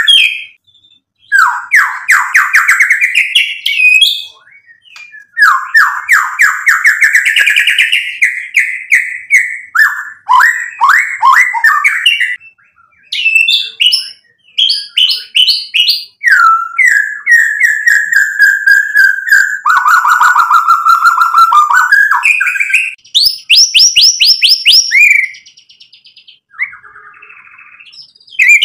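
Male white-rumped shama singing loudly: a string of varied phrases of fast rattling trills and whistled notes, each a second or two long, with brief pauses between them and softer notes near the end.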